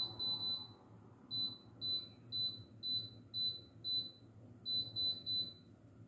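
Schneider dishwasher control panel beeping as its buttons are pressed again and again: about a dozen short, high beeps, roughly two a second, with a quicker run near the end before they stop.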